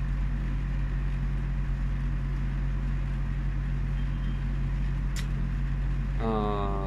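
Steady low hum of room noise, with a single sharp click about five seconds in; a man's voice starts speaking near the end.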